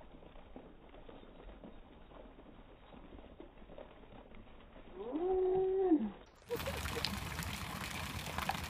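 A single drawn-out call, about a second long, that rises, holds and falls, a little past halfway through. After it comes a louder steady noise.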